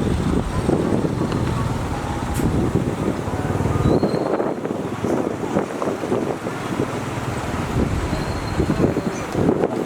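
Heavy construction machinery running with a continuous low rumble, mixed with wind buffeting the microphone.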